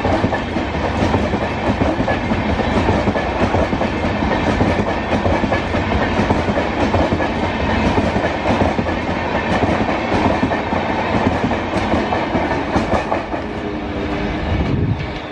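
Passenger coaches of a train rolling past close by: steel wheels on the rails make a dense, loud rumble and clatter. The sound eases near the end as the last coach passes and moves away.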